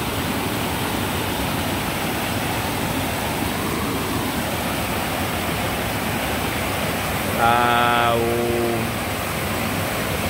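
Fast stream of whitewater rushing and cascading over rocks, a loud steady rush. About three quarters of the way through, a man's voice makes a short drawn-out sound over it.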